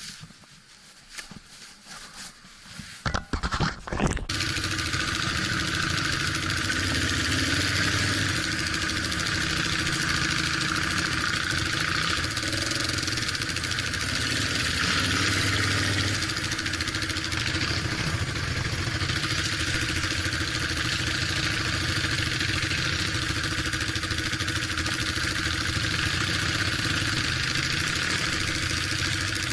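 Off-road vehicle engine running steadily, its pitch rising and falling a little under a steady hiss. It comes in suddenly about four seconds in, after a few knocks.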